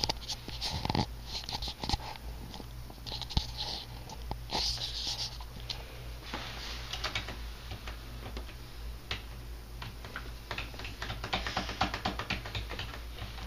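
A dog moving about close to the microphone, giving short hissy bursts and a scatter of sharp clicks that thicken into a quick run of clicks near the end.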